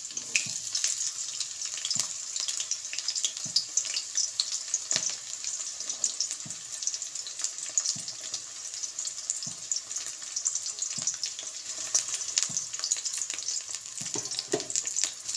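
Hot oil sizzling in a kadai, a steady frying hiss with many small crackles, as chopped garlic, green chilli and freshly added chopped onion fry.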